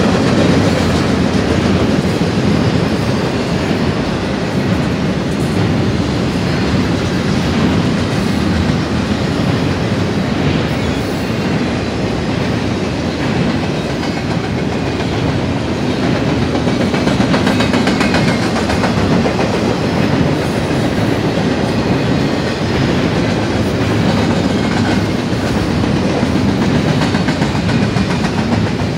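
BNSF double-stack intermodal freight train rolling past, its container well cars making a steady, even noise of steel wheels running over the rails.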